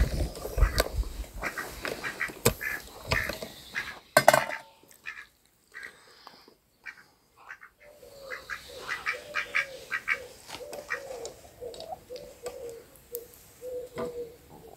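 Light metal clicks and clinks of engine gears and parts being handled, with one sharper clink about four seconds in. From about eight seconds a bird calls in a run of short, low notes.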